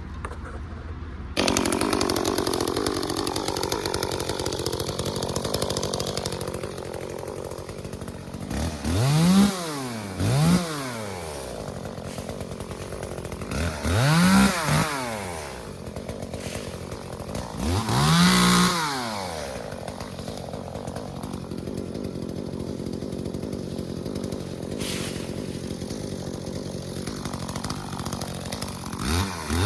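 A gas chainsaw comes in loudly about a second in and runs steadily. It revs up and back down five times, briefly each time.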